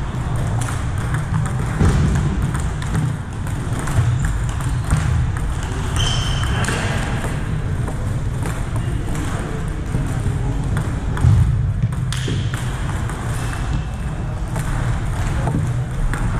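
A table tennis ball being hit back and forth in two short rallies, clicking sharply off the paddles and the table. More ball clicks come from games at neighbouring tables, over a steady low hum.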